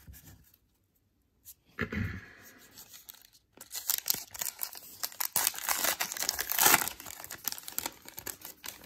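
A baseball card pack's wrapper being torn open and crinkled by hand, a dense crackling that is loudest near the end. A brief handling sound comes about two seconds in.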